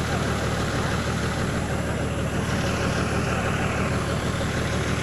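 Tow truck engine idling, a steady low rumble.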